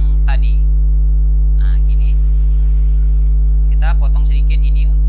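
Loud, steady electrical mains hum, with a few brief bits of quieter speech over it.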